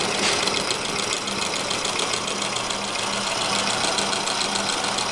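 Homemade model steam engine built from scrap brass and steel, running steadily with a fast, even beat of exhaust puffs over a constant hiss.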